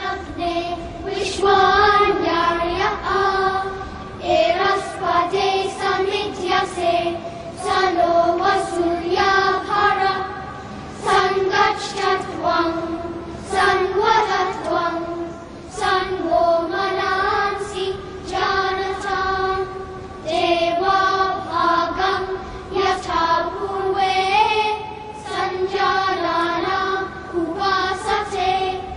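A children's choir chanting a Sanskrit shloka in unison, in short phrases on a narrow range of notes with brief pauses for breath.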